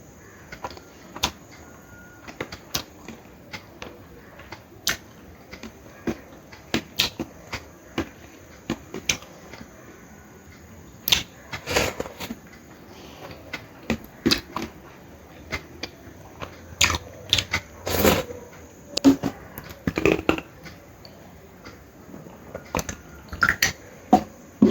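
A person eating close to the microphone: irregular sharp clicks and smacks of chewing and of food and plate being handled, with a few louder knocks along the way.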